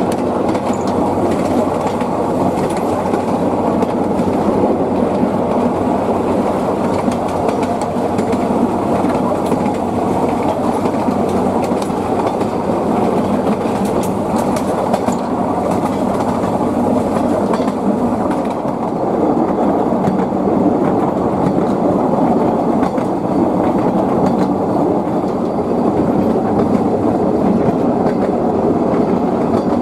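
Narrow-gauge passenger train under way, heard from aboard: the steady running noise of the carriage's wheels on the rails.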